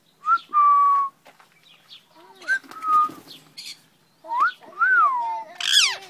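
Yellow Indian ringneck parrot whistling: several short, clear notes, some held steady and one gliding up and down, then a harsher call near the end.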